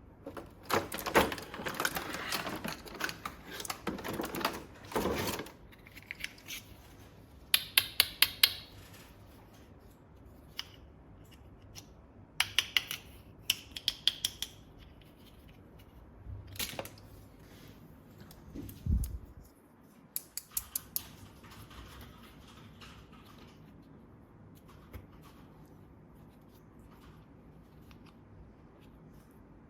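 Hands handling plastic toy parts and packaging: rustling for a few seconds, then several quick runs of sharp clicks and a single low thump, with quieter stretches between.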